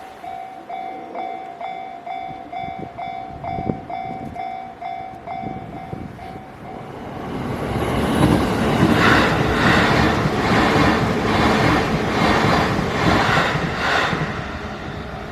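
Railroad crossing alarm dinging about twice a second. Then, about eight seconds in, a JR Nambu Line train passes with its wheels clattering over the rails, loud enough to drown out the bell.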